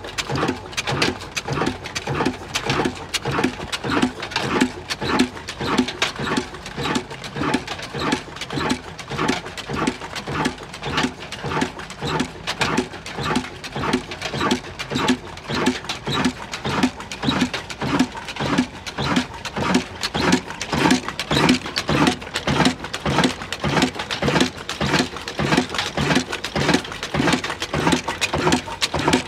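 Old black Ruston Hornsby diesel engine running at a steady slow speed, its exhaust beating in an even rhythm of a few beats a second.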